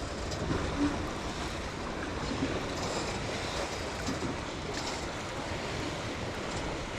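Steady wash of lake water and wind noise on the microphone aboard a boat.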